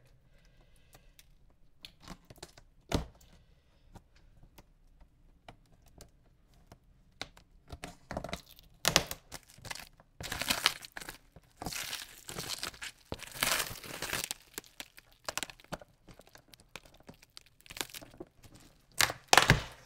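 Plastic stretch wrap around a cardboard box being cut and pulled off by hand. A few faint clicks and a knock come about three seconds in, then from about eight seconds in the plastic crinkles and tears in repeated loud bursts.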